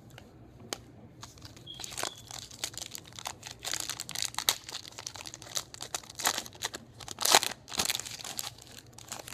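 Foil wrapper of a Topps Finest baseball card pack being torn open and peeled back by hand, crinkling in an irregular run of sharp crackles that is loudest about seven seconds in.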